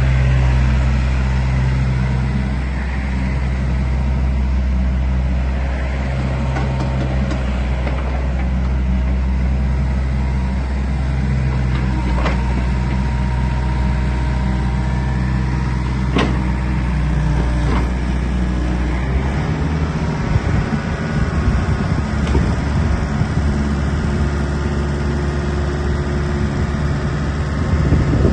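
Diesel engine of a Takeuchi TB175 wheeled excavator running with a steady low hum, turning rougher and less even about two-thirds of the way in. A couple of faint clicks are heard over it.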